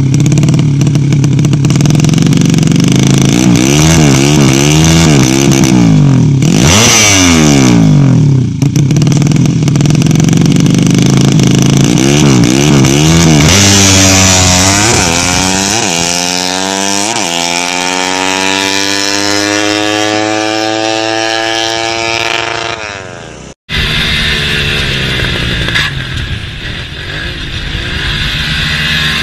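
Motorcycle engine revving up and down repeatedly, then a long engine note that falls slowly in pitch. It breaks off abruptly near the end, and a quieter, rougher engine sound follows.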